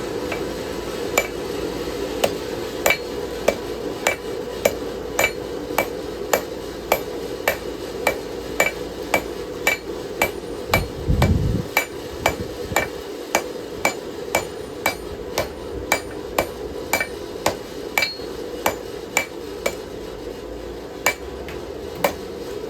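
Forging hammer striking hot knife steel on an anvil in a steady rhythm of just under two blows a second, drawing the blade out toward its tip, with a short pause and a low thud about ten seconds in. A steady low rushing noise runs underneath.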